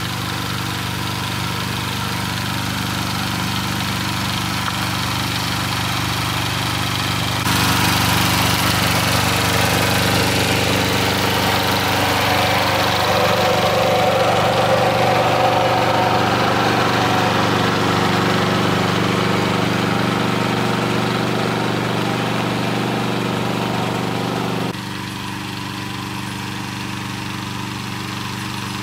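An engine running steadily. About a quarter of the way in it abruptly gets louder with added hiss, and it drops back just as suddenly a few seconds before the end.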